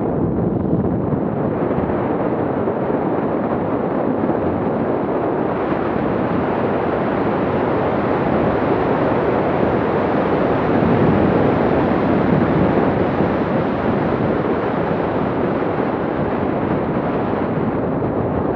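Wind rushing over the microphone of a Garmin VIRB action camera on a skier moving downhill, mixed with skis sliding on packed snow. A steady rush that swells slightly about ten seconds in.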